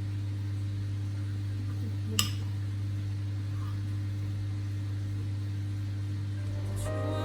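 Steady low electrical hum, like a running kitchen appliance, with one sharp click about two seconds in; soft music comes in near the end.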